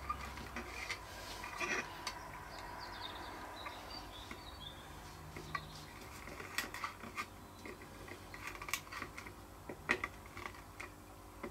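Steel pliers clicking and scraping faintly against a printed circuit board while working loose component contacts still stuck after desoldering, a scattering of small, irregular clicks.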